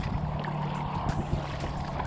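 Kayak paddling: the paddle blades dipping and splashing in turn, water dripping off them and washing along the plastic hull, over a steady low hum.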